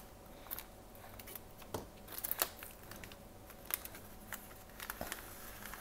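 Plastic wrapper of an individually packed snack cake being opened by hand: quiet, scattered crinkling with a few sharp little clicks.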